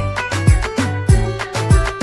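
Background music with a steady beat: a deep drum that drops in pitch hits about every 0.6 seconds under sustained melodic notes.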